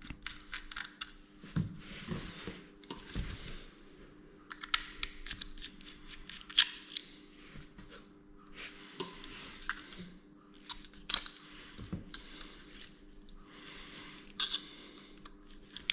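Irregular small clicks, taps and scrapes of hands handling an airsoft pistol and small tools at a workbench, as it is being readied for disassembly.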